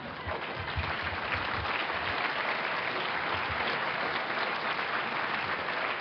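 Audience applauding: many hands clapping in a steady patter.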